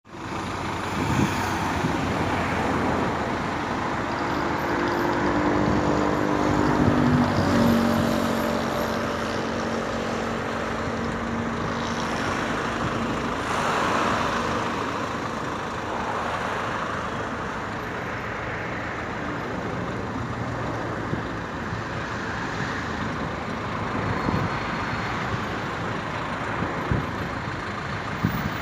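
Road traffic noise, with a motor vehicle going past about five to eight seconds in, its engine note falling slightly as it passes.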